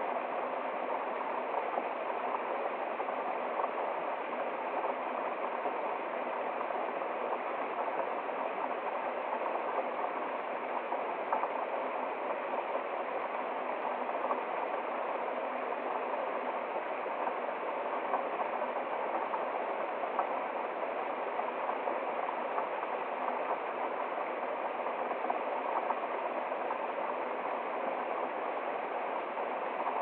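A small woodland waterfall spilling over rocks into a shallow stream: a steady, even rush of running water.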